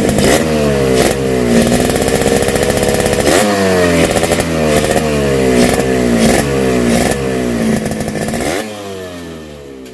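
Yamaha RX-King two-stroke single-cylinder engine blipped hard about ten times, each rev rising sharply and falling back, through a hollowed-out stock muffler made to give a crisp, growling note. The sound dies away in the last second or so.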